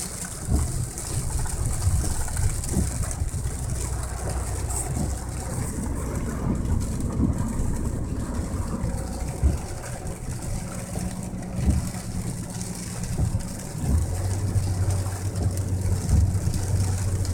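Storm noise: a hiss of rain with irregular low gusts of wind buffeting the microphone, over a steady low mechanical hum.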